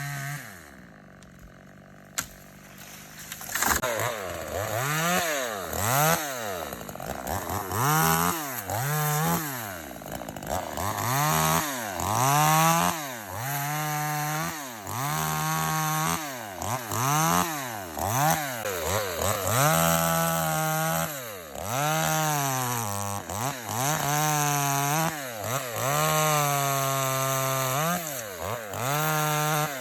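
Cx1202E chainsaw engine running at high revs, then dropping off briefly, with a click. From about three seconds in it revs up and down over and over, roughly once every couple of seconds, sometimes holding high revs for a second or two.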